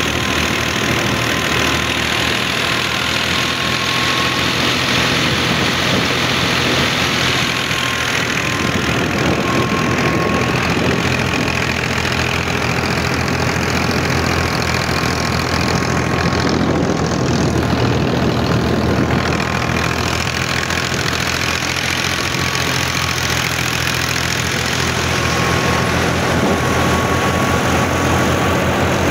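Al-Ghazi diesel tractor running steadily under load, driving a wheat thresher as straw is fed in, with a thin steady whine above the engine noise.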